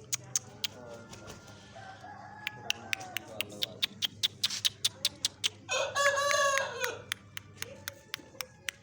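Aseel rooster crowing once, a short call of just over a second starting about six seconds in, after a fainter drawn-out call about two seconds in. Sharp, irregular clicks sound throughout, several a second.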